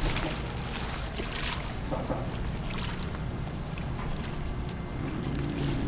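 Water running and splashing at the edge of a high, flooded river, with a steady low rumble and a few faint clicks.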